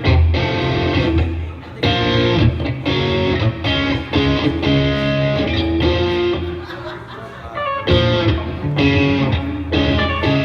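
Live amplified band music led by strummed electric guitar, chords changing every second or so over a heavy low end, with a brief drop about two seconds in and a quieter passage past the middle.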